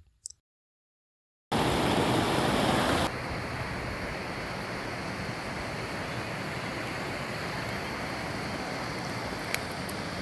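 Stream water rushing steadily over rocks. After a moment of silence it comes in loud, then drops to a lower, even level about three seconds in, with a couple of faint ticks near the end.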